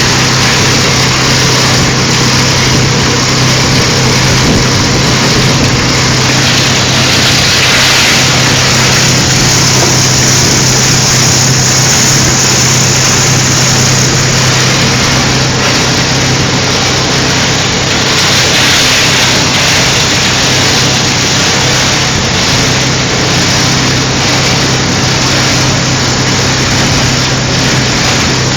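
Medical waste shredder running: a loud, steady motor hum under a continuous dense noise.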